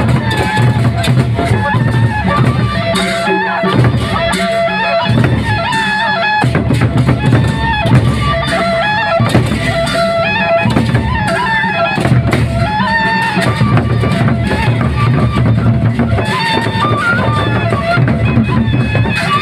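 Gendang beleq ensemble playing: large Sasak drums beating steadily under busy percussion, with a melody moving step by step above.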